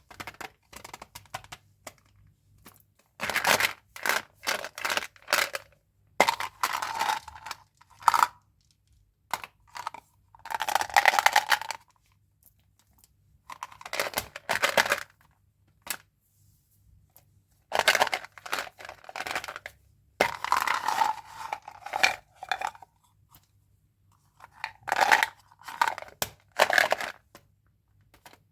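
Candy wrappers being torn open and crinkled by hand, in repeated crackling bursts of a second or two with short pauses between.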